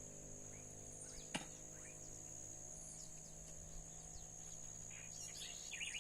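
Wild birds singing faintly in scattered short chirps, with a quick run of trilled notes near the end, over a steady high-pitched insect drone. There is a single sharp click about a second and a half in.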